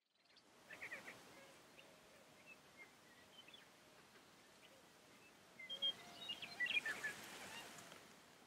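Lesser prairie chickens calling faintly on a lek: scattered short high calls over a few low, held tones, with a busier flurry of calls about six to seven and a half seconds in.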